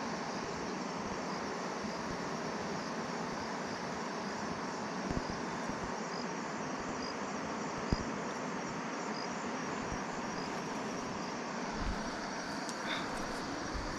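Steady rushing of a forest stream, with faint insect chirps repeating about twice a second and a couple of light clicks.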